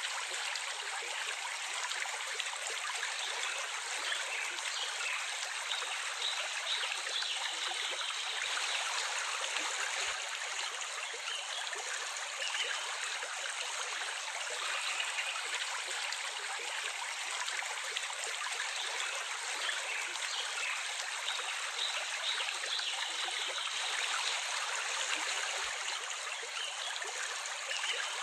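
Flowing stream water running steadily: an even rushing hiss with no breaks.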